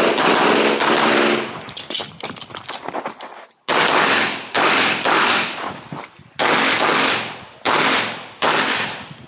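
Semi-automatic pistol shots fired in quick strings during a practical shooting course of fire: a fast burst of shots at the start, then pairs and singles with short pauses. Each shot is followed by a ringing echo off the surrounding walls.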